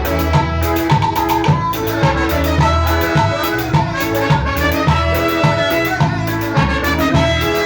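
A tropical dance band playing live: bass, percussion and melody instruments over a steady, even beat, without singing.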